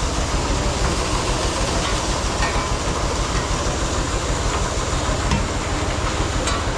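Grain sliding and pouring out of a tipped trailer box onto a heap: a steady rushing hiss over a low, even rumble, with a few faint ticks of kernels.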